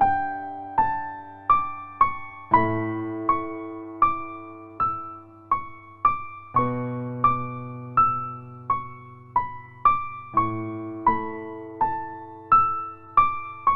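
Gentle background keyboard music: single piano-like notes struck at an even, unhurried pace, about one every three-quarters of a second, over held low bass notes.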